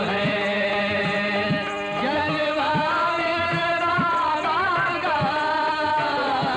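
Qawwali music: a voice sings long, bending lines over a steady held-note accompaniment, with hand-drum strokes about twice a second.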